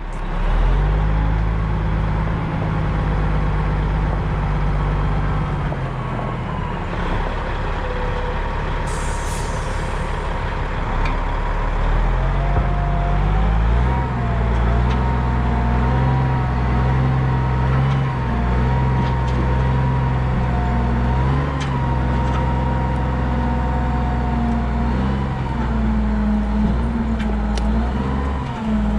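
Skid steer loader's diesel engine running under load while grading, its note shifting several times, with a thin whine that rises and falls through the second half.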